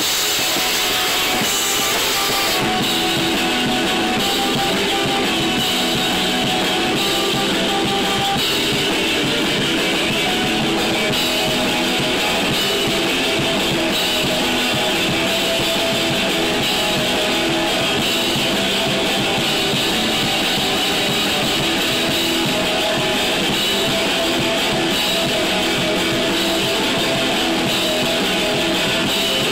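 Rock band playing live: guitars over a drum kit, the music running on without a break.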